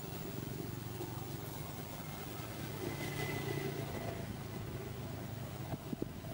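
Steady low engine hum, like a motor vehicle running, with a couple of short soft knocks near the end.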